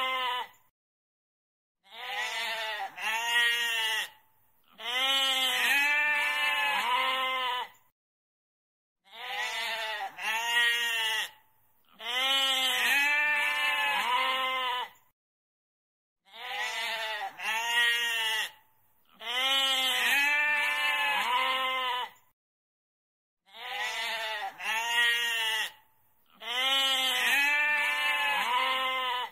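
Goat bleating over and over: a quavering, wavering call of one to three seconds, repeated about every three to four seconds with dead silence between calls.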